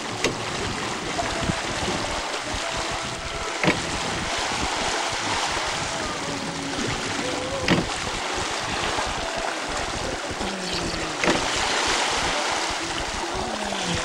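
Seawater rushing and splashing around a person towed on a line behind a sailing yacht under way, with wind buffeting the microphone. A few short sharp knocks stand out over the rush of water.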